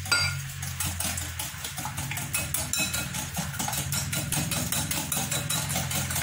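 Wire balloon whisk beating eggs and sugar in a glass bowl, its wires clicking against the glass in a fast, even rhythm. A low steady hum runs underneath.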